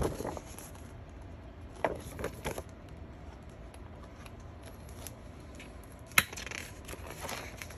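Stiff pages of a ring-bound photobook being handled and turned: paper rustling and several soft clicks, with one sharp click a little after six seconds in, followed by more rustling.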